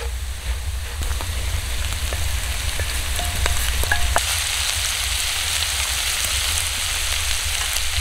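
Diced potatoes frying in a cast-iron skillet over campfire embers, a steady sizzle with light scraping and clicks of a wooden spoon stirring early on. About four seconds in the sizzle gets louder as diced bacon goes into the pan.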